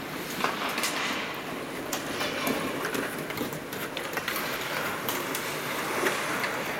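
Ice hockey skates scraping and carving on the rink ice, with sharp clacks of sticks and puck now and then.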